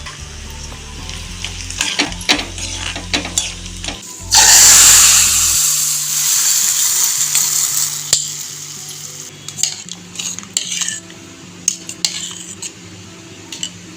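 Cashews and raisins frying in ghee, stirred with a metal spoon that clinks against the pan. About four seconds in there is a sudden loud burst of sizzling that dies away over the next few seconds, followed by a few more clinks.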